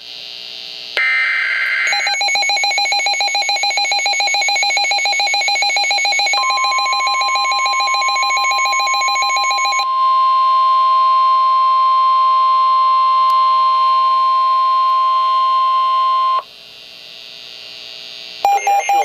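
NOAA Weather Radio alert tones: a rapidly pulsing electronic beep runs for about eight seconds. Partway through, the steady 1050 Hz warning alarm tone comes in over it, holds for about ten seconds and cuts off. It signals that a new warning is about to be broadcast.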